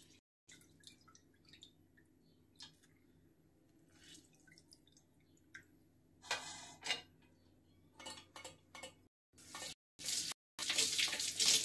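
Lemon juice squeezed by hand, dripping and trickling into a steel pot of aloe vera juice. Faint at first, with louder splashy noise from about halfway and the loudest burst near the end.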